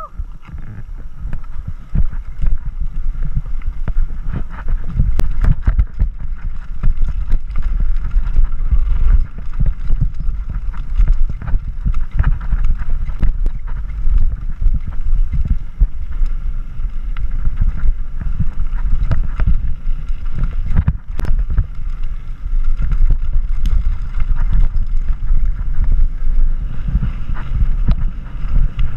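Mountain bike riding down a rocky gravel trail, heard through a rider-mounted action camera: wind buffeting the microphone in a heavy rumble, with constant knocks and rattles of tyres and bike over stones. It grows louder over the first two seconds.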